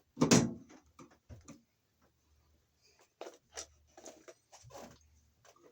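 Irregular clicks, snips and scraping from hand tools working solid copper electrical wires in a junction box, stripping and evening up the insulation; the sharpest click comes about a third of a second in.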